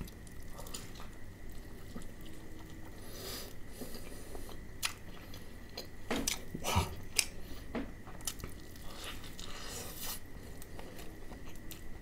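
A person biting and chewing crispy fried chicken (KFC Hot & Crispy): irregular crunches of the breading with chewing in between, the loudest crunches falling around the middle and near the end.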